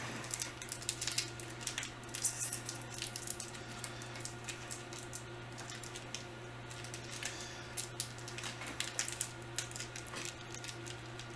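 Plastic candy wrapper crinkling and rustling in short irregular clusters with small clicks as it is handled, over a steady low hum.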